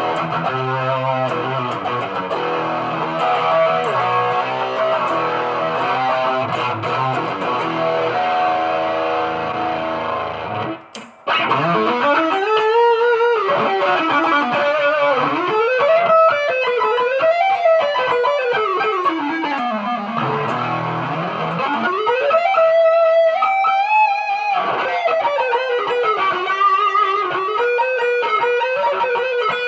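Ibanez GIO electric guitar being played: full, busy chordal playing for about the first ten seconds, a brief cut-out, then a single-note lead line with notes sliding and bending up and down in pitch.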